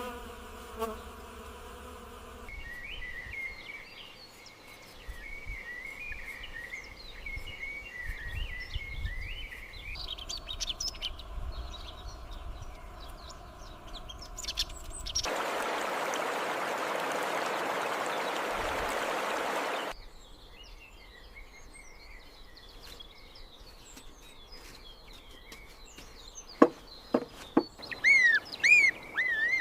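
Outdoor countryside sound: a buzzing insect and warbling birdsong, cut by about five seconds of steady rushing noise that starts and stops abruptly partway through. Near the end come loud, sharp bird chirps with quick falling notes.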